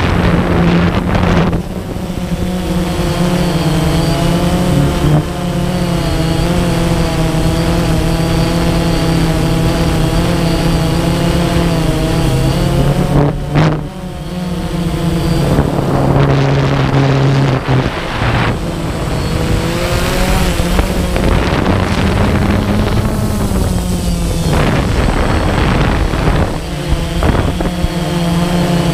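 DJI Phantom quadcopter's motors and propellers buzzing loudly, heard from the GoPro mounted on the drone. It is a steady hum of several tones whose pitch shifts a little as the motors change speed, with rushes of wind noise on the microphone at times.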